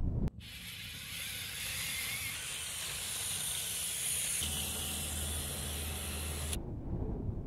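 LEGO Technic tracked crane driving over stony ground: plastic track links clattering on grit with the LEGO XL drive motors running, heard as a steady hiss-like rattle. A low hum joins about halfway through, and the sound cuts off near the end.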